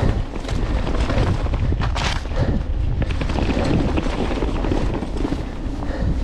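Mountain bike ridden over rough trail: heavy wind buffeting on the microphone with a continuous rattle and clatter of the bike over roots and stones, and a sharp knock about two seconds in.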